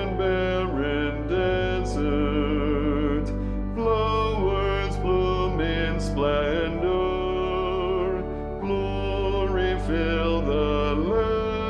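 Choral music: a soprano voice sings long held notes with vibrato over a steady, sustained low accompaniment.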